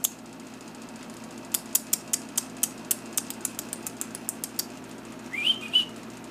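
Yorkshire terrier puppy's claws clicking quickly and unevenly on a tile floor for about three seconds. Near the end comes a short, rising puppy squeak.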